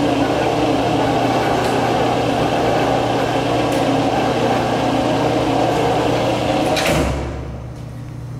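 Ransome 200P welding positioner's 5 hp electric tilt drive running, a steady gear-motor hum as the table tilts forward. It stops about seven seconds in with a short knock, leaving a quieter electrical hum.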